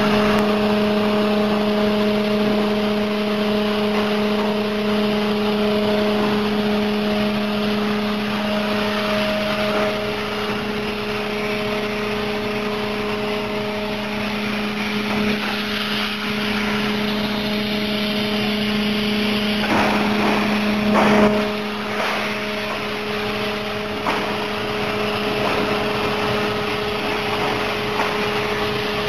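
CNC plasma cutting table running a cut: a steady hiss with a hum, with a brief louder swell about 21 seconds in.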